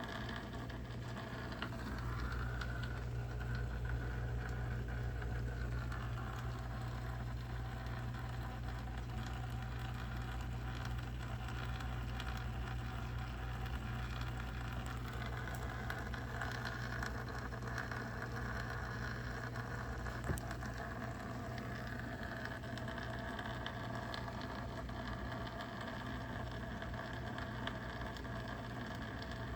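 Dishwasher running with a steady low hum under a rushing wash, and a higher whine that comes and goes twice: the funny noise the owner is concerned about. A single sharp click about two-thirds of the way through.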